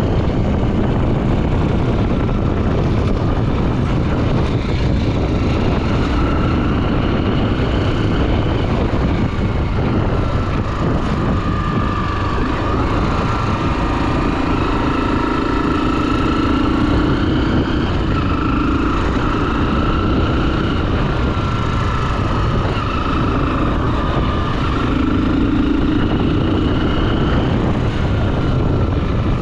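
Honda XR 250 Tornado's single-cylinder four-stroke engine running while riding, its pitch drifting gently up and down with the throttle, under a steady rush of wind noise.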